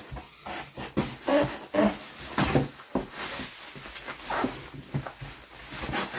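Bubble wrap being pulled out of a cardboard box by hand, crinkling, rustling and scraping against the cardboard in an irregular run of sounds, with a few short squeaks of plastic.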